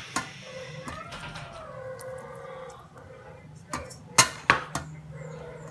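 Taps and knocks on a stainless steel pot as slices of tomato and onion rings are laid into it by hand, with a cluster of sharper knocks about four seconds in.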